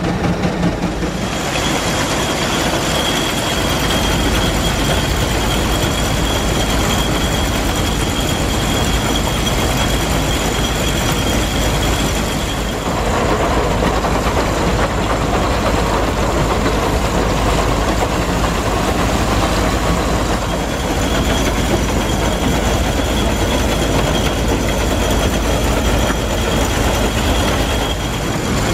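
A 1911 Case 36 x 58 inch grain separator threshing oat bundles, running steadily under belt power with a continuous mechanical clatter and rumble. A thin high whine comes and goes.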